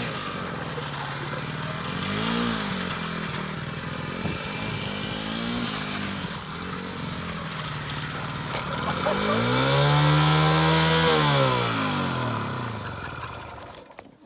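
Suzuki DR200 dirt bike's single-cylinder four-stroke engine revving up and falling back several times, the longest and loudest rise about ten seconds in. The sound cuts off just before the end.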